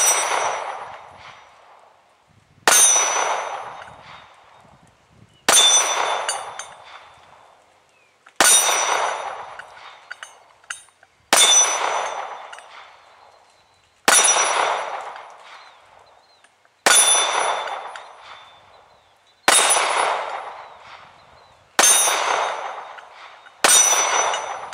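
A 9-inch, 3/8-inch AR500 steel plate target struck about ten times, one hit every two to three seconds, each hit ringing out with a high metallic tone that fades over a couple of seconds.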